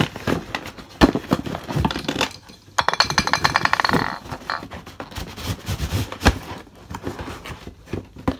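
Handling noises: irregular knocks, clicks and rustling, with a fast rattling run of clicks lasting about a second, three seconds in.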